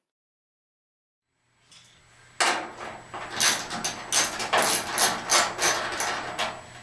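Silence for about a second and a half, then a quick run of rasping, scraping strokes, several a second, as hardware is worked off the top of a dryer's cabinet.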